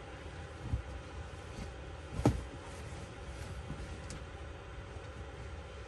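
Soft thumps and rustling of pillows and bedding being handled and laid on a bed, with one louder thump a little over two seconds in, over a steady low hum.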